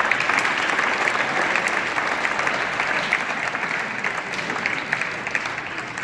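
Audience applauding: dense hand clapping that slowly fades toward the end.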